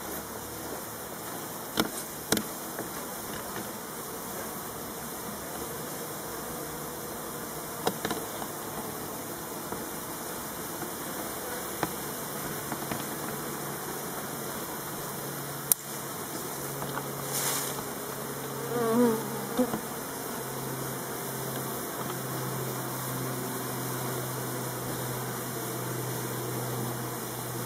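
A mass of honeybees buzzing steadily in a hive box, the hum growing a little stronger in the second half. A few sharp clicks sound over it, with a short warbling sound near the end.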